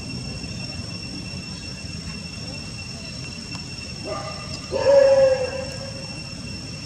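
Baby long-tailed macaque crying: a short cry about four seconds in, then a louder, longer cry lasting nearly a second.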